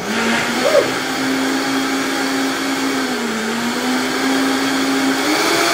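Countertop blender starting up suddenly and running at speed, blending a thin Dutch baby pancake batter. Its motor hum dips briefly about three seconds in and rises in pitch near the end.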